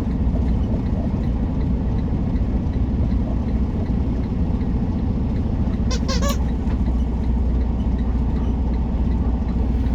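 Semi-truck engine and drivetrain running steadily on the road, heard from inside the cab; the driver calls its failing transmission rough. A brief high-pitched sound comes about six seconds in.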